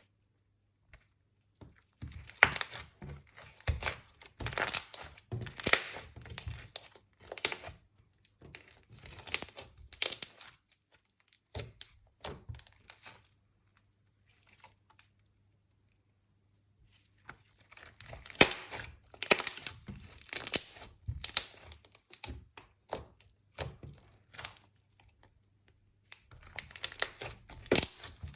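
Slime being squeezed, pressed and stretched by hand, giving off dense runs of small clicks and pops in bursts of a few seconds, with short quiet pauses between handlings.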